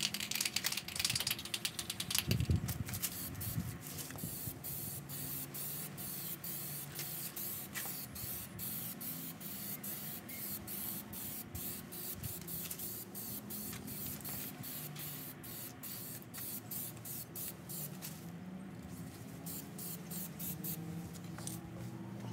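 Plasti Dip rubber-paint aerosol spraying in a long run of short, spitting spurts rather than a smooth hiss, the blotchy spray the owner puts down to a can that was not warmed before the first coat. A low knock comes about two seconds in.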